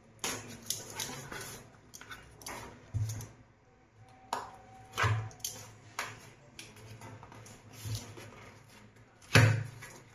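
Box cutter slitting packing tape on a cardboard carton: a string of short scrapes and cardboard rustles with dull knocks. The loudest knock comes near the end, as the top flap is pulled open.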